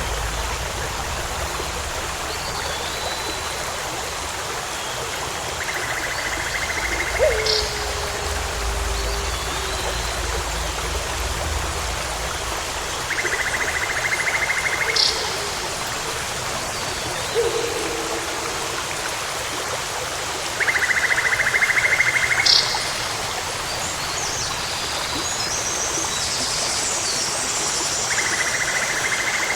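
Nature ambience: a steady hiss like running water, with a short buzzy call repeating about every seven and a half seconds and an occasional low hoot-like call.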